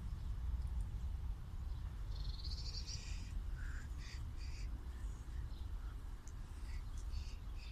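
Birds calling in the trees: a brief trill about two seconds in, then a string of short harsh calls, over a steady low rumble.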